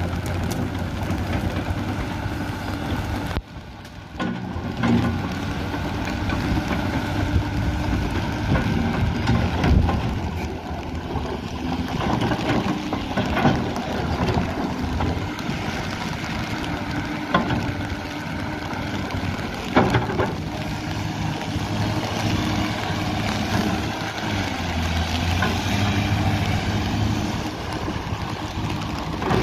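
Diesel engine of a 1997 Case 9030B hydraulic excavator running steadily under hydraulic load while the boom, arm and bucket are worked and the upper structure swings. The engine note shifts a little with the load, and a few sharp clanks come through.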